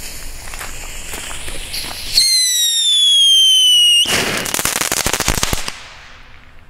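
Komet Blitzgewitter whistle fountain (a youth firework) hissing as it sprays sparks. About two seconds in it gives a loud, shrill whistle that slowly falls in pitch and cuts off suddenly near four seconds. A spell of dense, rapid crackling follows and dies away before the end.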